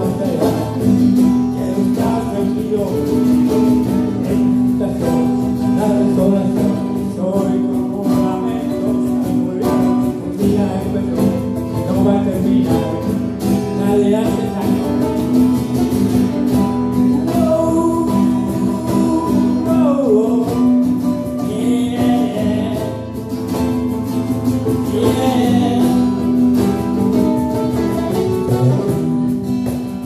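Live acoustic band playing a Latin ballad: strummed acoustic guitar with mandolin and hand percussion keeping a steady beat.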